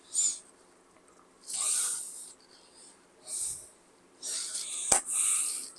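A man breathing in and out near a chest-worn microphone, four short hissy breaths about a second and a half apart, with one sharp click near the end.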